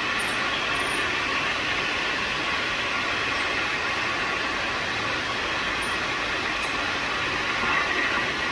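Automatic crystal pendant-making machine running: a steady, even mechanical noise.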